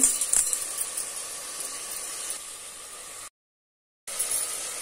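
Chopped tomatoes frying in oil in a steel pot: a steady sizzling hiss, with a few light clicks at the start. It drops out completely for under a second near the end, then resumes.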